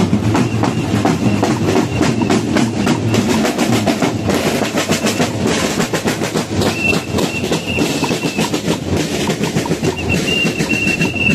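Drums beaten in a steady, rhythmic pattern by a marching group. A high steady tone comes in twice in the second half, each time held for a second or more.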